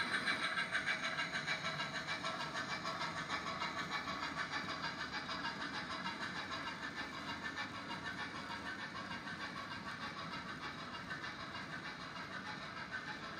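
OO gauge model freight train running past over pointwork, with a rapid rhythmic clicking of wagon wheels on the rails, getting gradually quieter.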